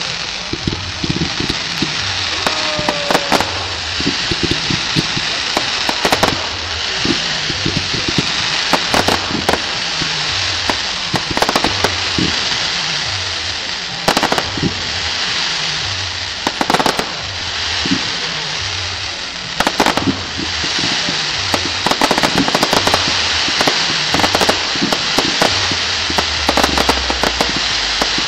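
Fireworks display: dense crackling with many sharp bangs throughout, and a brief whistle about three seconds in.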